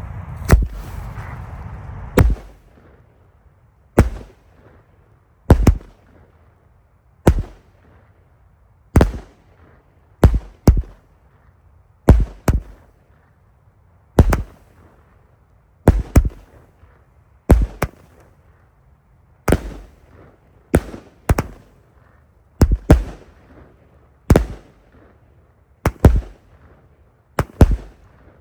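Vulcan Europe 'Speed of Sound' firework going off: a series of about twenty sharp, loud bangs, roughly one every one and a half to two seconds, several coming in quick pairs. A rushing hiss runs under the first two seconds.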